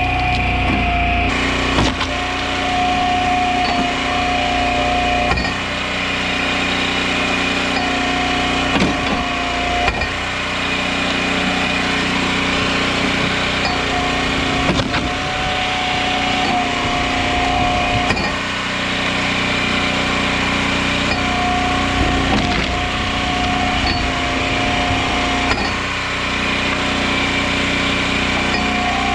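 Engine-driven hydraulic log splitter running steadily. A higher whine comes in for a few seconds at a time, about five times, as the ram cycles through the rounds, with occasional cracks of wood splitting.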